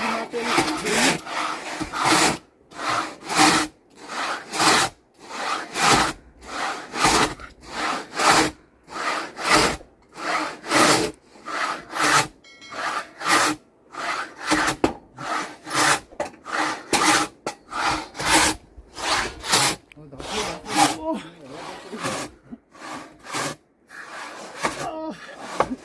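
Nepalese hand saw cutting through timber, its teeth rasping in a steady back-and-forth rhythm of strokes with short pauses between them.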